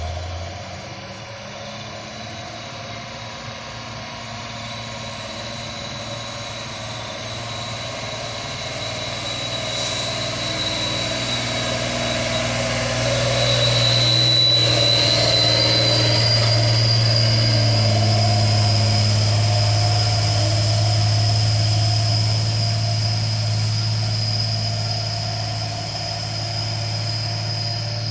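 Heavy truck engine running with a low hum and a faint high whine, growing steadily louder to a peak just past halfway, then easing off a little.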